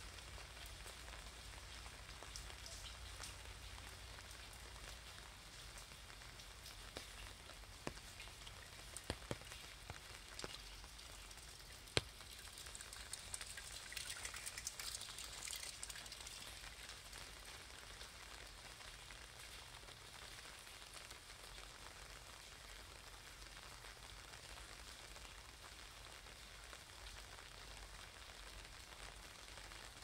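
Light rain falling on wet pavement: a faint, even hiss with scattered drops ticking, and a low steady hum underneath. A single sharp tap about twelve seconds in is the loudest moment, followed by a few seconds of louder spattering.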